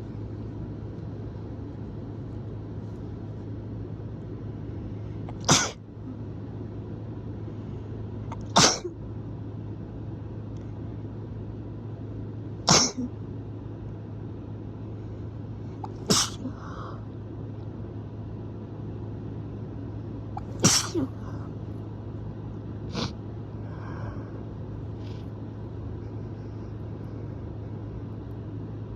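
A person sneezing hard: five loud sneezes a few seconds apart, then a weaker sixth, over a steady low background hum.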